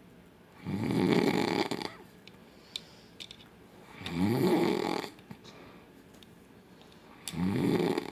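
A sleeping man snoring very loudly: three long snores about three seconds apart, each rising a little in pitch.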